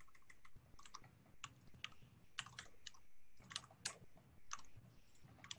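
Faint, irregular keystrokes on a computer keyboard: scattered sharp clicks as a command is typed and run.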